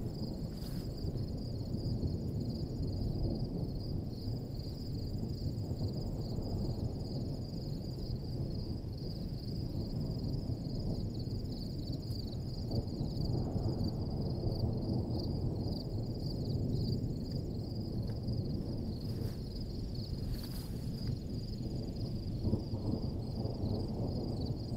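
Storm wind blowing across the microphone, a rushing that swells and eases, with a steady high pulsing insect chorus above it.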